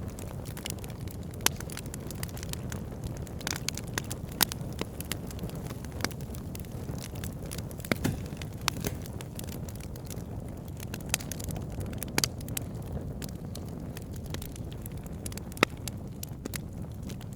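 Campfire burning: a steady low rumble with irregular sharp crackles and pops, a few of them louder than the rest.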